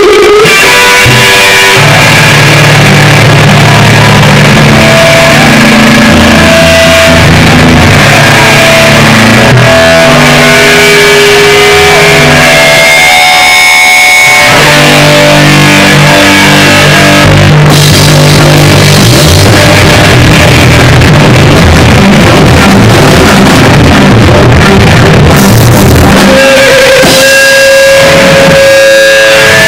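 Live rock band playing loud: electric guitar, electric bass and drum kit, with the bass line dropping out briefly about halfway through.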